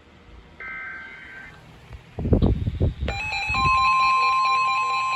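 A NOAA Weather Radio SAME header data burst: a buzzy two-tone chirp lasting about a second. A few low thumps follow. About three seconds in, the weather radio receivers' alert alarms start sounding, joined by the steady NOAA warning alarm tone. This signals that a new warning is about to be read.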